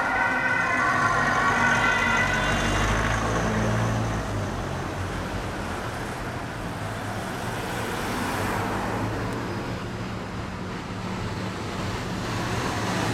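German two-tone fire engine siren (Martinshorn) fading away over the first few seconds, then the engines and tyres of heavy emergency vehicles driving past amid road traffic.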